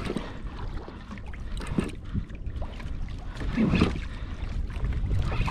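Water sloshing against a kayak's hull, with wind rumbling on the microphone and scattered small knocks. A brief louder sound about two-thirds of the way through.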